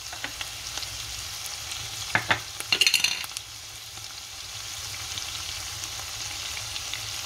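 Liver, onions and sauce sizzling steadily in a frying pan, with a few knocks and a short clatter about two to three seconds in.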